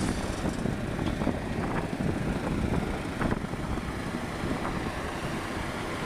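Heavy diesel earthmoving machinery running steadily, with a few faint knocks.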